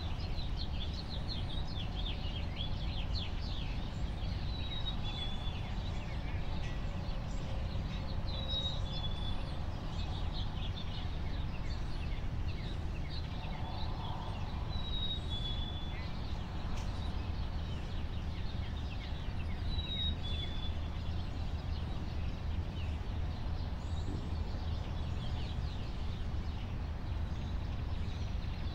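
Early-morning songbirds chirping over a steady low background rumble, with one bird repeating a short high two-note call every few seconds. The chirping is busiest in the first few seconds.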